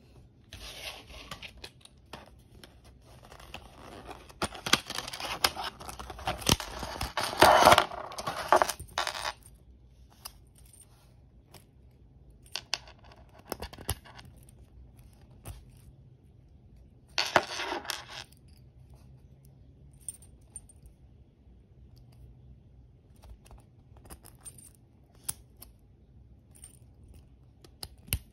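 Rustling handling noise for the first nine seconds or so, then a brass padlock and its keys being handled: scattered short metallic clicks and clinks from the shackle and the keys.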